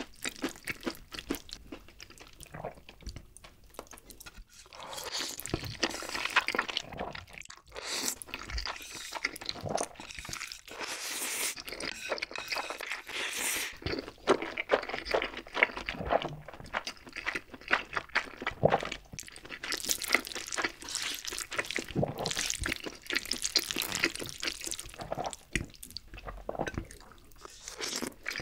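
Close-miked eating of creamy, saucy ramen noodles: irregular wet slurps, sticky chewing and smacking mouth sounds.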